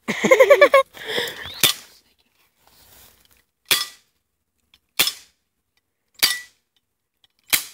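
BB pistol fired five times, single sharp shots a second or two apart. A short shout at the very start.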